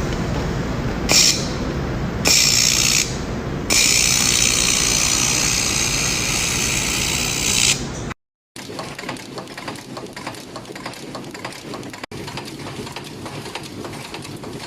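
Factory cable-making machinery running. A low rumble has a short hiss about a second in, a longer one about two seconds in, and a long steady hiss from about four to eight seconds. After a sudden cut, a quieter machine clicks rapidly and evenly.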